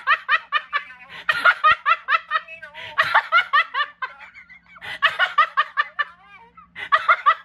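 A woman laughing hard in about four bursts of quick, high-pitched ha-ha pulses, with short breaths between them.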